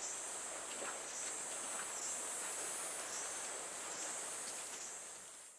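A steady, high-pitched chorus of insects shrilling in the heat, swelling and easing about once a second, and fading out near the end.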